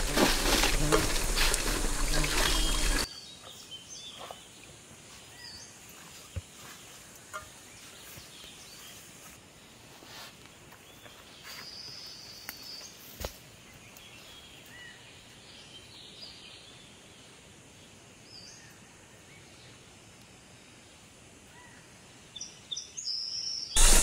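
Loud rustling for about the first three seconds. Then quiet outdoor ambience with faint, scattered bird chirps and a few small ticks. Loud rustling starts again a second or so before the end.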